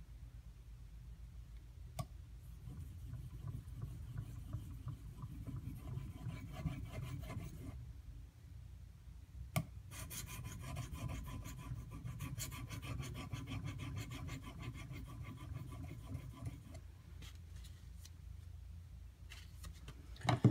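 Knife edge being stroked back and forth across a Shapton Pro water stone, a rasping scrape in runs of strokes with short pauses. A sharp click sounds twice, about two seconds in and again near ten seconds.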